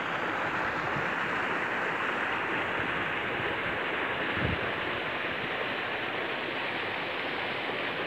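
Steady rushing of flowing river water, with a brief low thump about four and a half seconds in.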